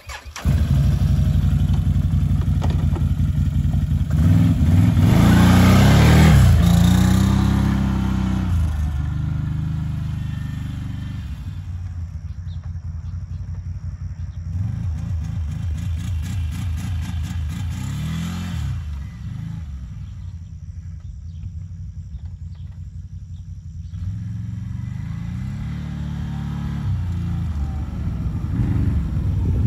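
2009 Can-Am Outlander 800R's V-twin engine starting about half a second in, then running and revving as the ATV is ridden. Its pitch rises and falls several times with the throttle, and it grows louder near the end as the ATV comes back.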